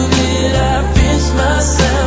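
Background music: a song with sustained bass notes and a regular beat.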